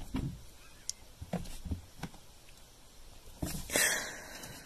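Cat paws thumping and batting at a mirror and carpet: a string of soft knocks and scuffles, with a louder scuffling noise for about half a second near the end.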